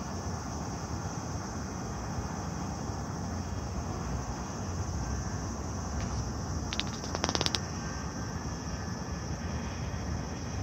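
Steady hum of distant road traffic, with a constant high-pitched hiss over it and a short cluster of clicks about seven seconds in.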